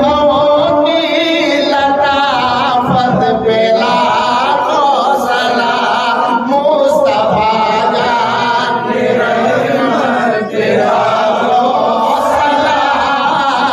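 A man sings an Urdu salam, a devotional song of greetings to the Prophet Muhammad, through a stage microphone. His melody runs on continuously, with long held notes that bend in pitch.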